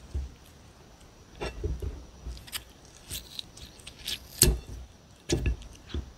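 Irregular clicks, taps and light knocks of fingers handling and breaking cucumber pieces on a ceramic plate, the loudest knocks near the end.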